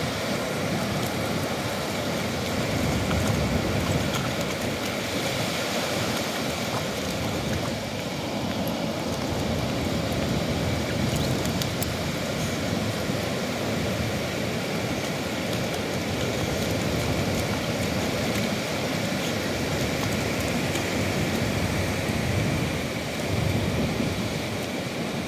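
Steady roar of wind buffeting the microphone over the wash of surf, with the low rumble rising and falling. Under it, dogs' paws splash and scrape as they dig in wet sand and shallow water.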